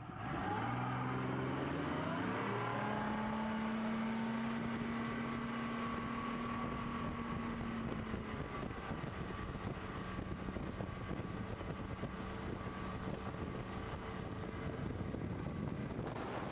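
250 hp Yamaha VMax four-stroke outboard revving up hard over the first few seconds, a rising engine note as it pulls a water skier up out of the water, then running steadily at towing speed with wind and water noise.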